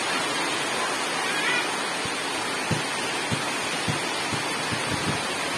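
Heavy tropical rain falling steadily, a dense even hiss, with a series of soft low thumps in the second half.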